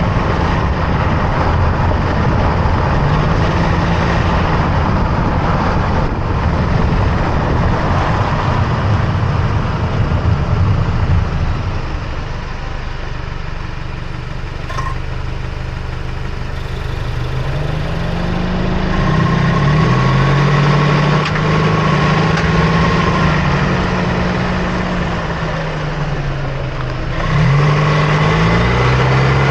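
2024 Toyota Tacoma driving, heard from under the front end: steady road and tyre noise, with the engine note rising and falling as the truck accelerates and eases off, and quieter for a few seconds in the middle. About two-thirds through there is a brief thin whistle, typical of the turbo spooling.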